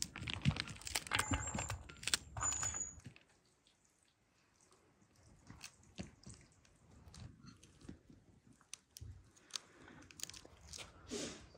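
Pomegranates being broken apart by hand, the rind and pith crunching and tearing as the seeds are picked out. There is a dense run of crackling and seeds dropping into a metal basin in the first three seconds, then scattered quieter clicks as the seeds fall.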